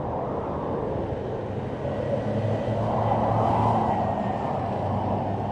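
FPV racing drone's motors and propellers buzzing with wind rush, picked up by its onboard camera, swelling a little in the middle as it banks hard.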